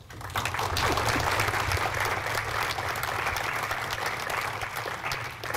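Audience applauding: many hands clapping at once, starting just after the welcome and thinning out near the end.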